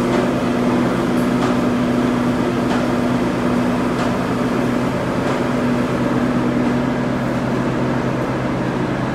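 Tea-factory processing machinery (leaf roller and CTC cutting machines) running with a steady electric-motor hum.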